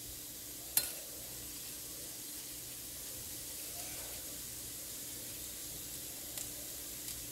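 Faint, steady sizzle of hot oil in a nonstick frying pan with cumin seeds, mustard seeds and turmeric just starting to fry for a tadka (tempering). A single sharp click about a second in.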